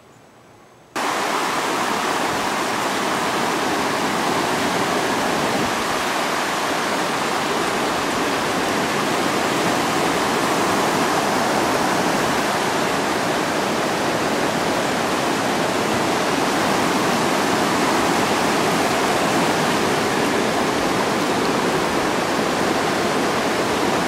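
Muddy floodwater rushing through a river in flood. It is a loud, steady rushing noise that starts suddenly about a second in.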